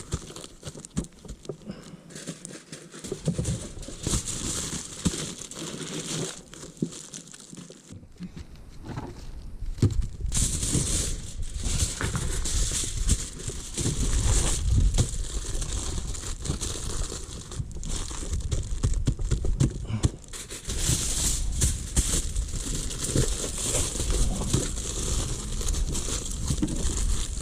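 Aluminium foil crinkling and rustling as a foil-pack dinner is folded and crimped shut by hand, with handling bumps, louder from about ten seconds in.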